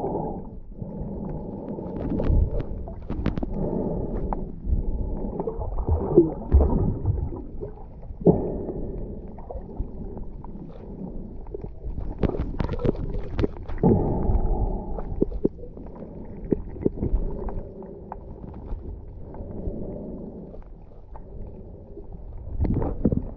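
Muffled water moving around a camera held underwater: gurgling and sloshing that swells and fades unevenly, with scattered sharp clicks and knocks.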